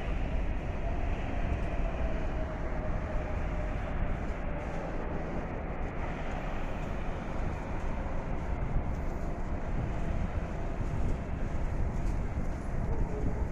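Steady low outdoor rumble, heaviest in the bass, with a faint tone that slides slowly down during the first few seconds.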